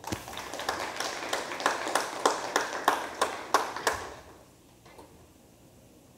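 Audience applauding, with single claps standing out, for about four seconds before dying away.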